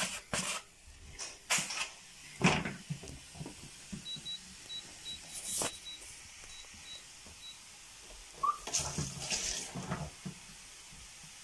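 Sliced mushrooms tipped from a foam tray into a frying pan, with a few knocks and clatters of the tray against the pan. About four seconds in, the induction hob's touch controls beep about a dozen times in quick succession as the heat is turned up. More clatter comes near the end.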